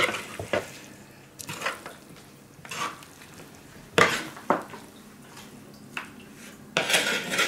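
A spoon stirring and scraping cooked jollof rice around a large wooden bowl: a series of separate scrapes and knocks, with a longer scrape near the end.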